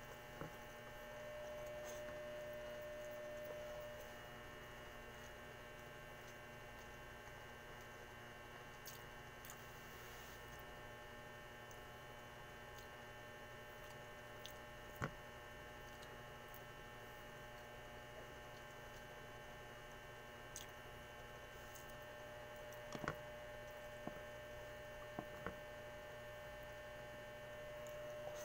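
Steady electrical mains hum with several constant tones, and a faint whine that swells for a few seconds near the start and again near the end. A few isolated sharp ticks and taps stand out, the loudest about halfway through and a cluster in the last third.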